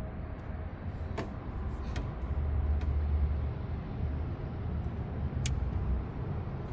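A steady low rumble, with four short, sharp clicks and taps scattered through it, from hand tools being worked at a radiator hose in the engine bay.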